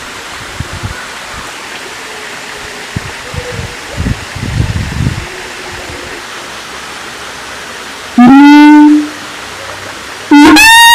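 Siamang calling. Low irregular rumbles in the first half, then a loud call that rises in pitch about eight seconds in and lasts under a second, and another loud rising call starting just before the end.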